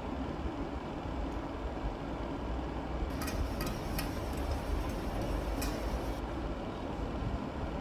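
Chef's knife slicing white radish on a plastic cutting board, with a few sharp taps of the blade on the board between about three and six seconds in. A steady low rumble runs underneath.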